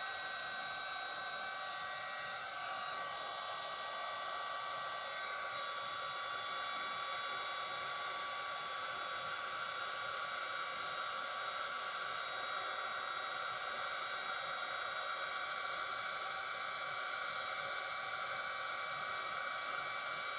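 Handheld electric heat gun running continuously, its fan blowing a steady rush of hot air with a few steady whining tones. It is heating poured paint and resin to spread the colour.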